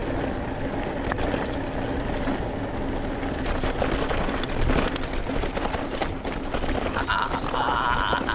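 Mountain bike riding over a rough dirt trail: wind buffeting the microphone as a steady low rumble, with many small knocks and rattles from the bike and ground.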